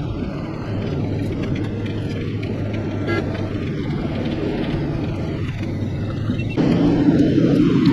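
Road noise and engine rumble of a moving car, heard from inside the cabin: a steady low rumble that grows louder about a second before the end and then cuts off abruptly.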